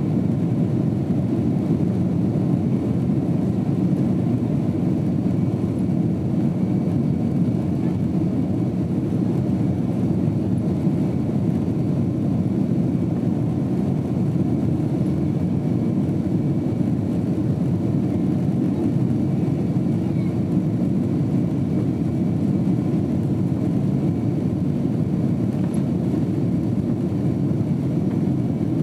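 Boeing 767 jet engines and airframe noise heard inside the cabin from a window seat behind the wing: a steady low rumble that neither rises nor falls.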